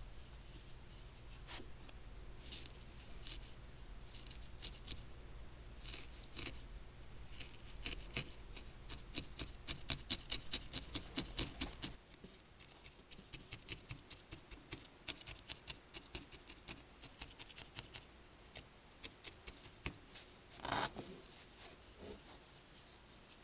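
Barbed felting needle stabbing repeatedly into wool roving over a foam pad: a string of quick crisp ticks, at their fastest about four a second, with one louder knock near the end.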